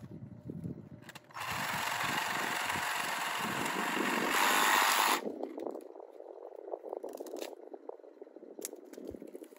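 Cordless saw cutting through the dry lower leaves of a yucca: a harsh buzzing run of about four seconds that gets louder just before it cuts off, followed by the crackle of dry leaves being pulled and scraped.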